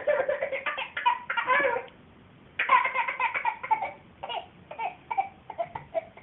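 A toddler laughing in fits of giggles: a burst of laughter, a brief pause, then a longer burst that breaks into shorter, scattered giggles.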